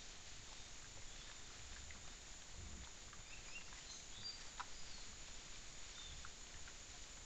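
Faint forest background over the trail camera's steady hiss: soft rustling and scattered ticks as peccaries root through dry leaf litter, with a few faint, short bird chirps.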